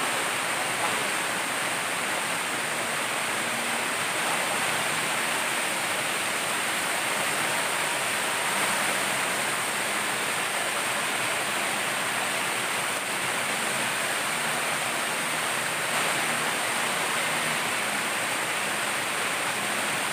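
Waterfall in tropical forest pouring onto rocks close by: a steady rush of falling water that doesn't change.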